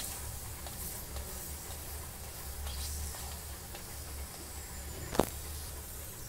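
Ghee-coated paratha sizzling faintly on a hot iron tawa as a flat steel spatula presses it, over a steady low hum. A single sharp click, the spatula knocking the tawa, about five seconds in.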